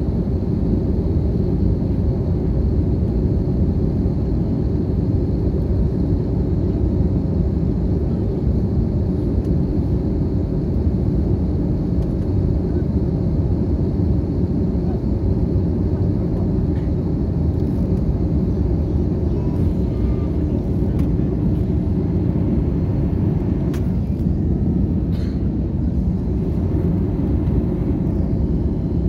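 Steady low drone of an airliner cabin in flight: jet engine and airflow noise, with a faint steady high whine above it.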